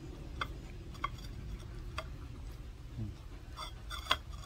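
A puppy chewing cooked vegetables, with about five sharp, crisp clicks of bites and mouth sounds spaced irregularly, the loudest near the end.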